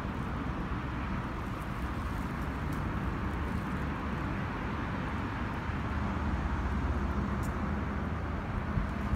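Steady outdoor background noise with a low rumble, typical of distant traffic or wind on the phone's microphone, with no distinct events.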